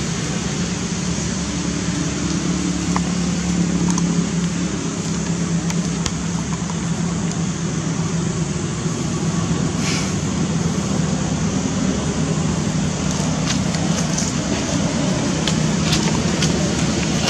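Steady low motor-like rumble with a hiss over it, and a few faint clicks in the second half.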